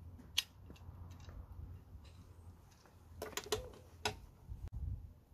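Metal clicks of a socket on a breaker bar being fitted onto a car's wheel nut: one sharp click about half a second in, then a cluster of clicks around three to four seconds in.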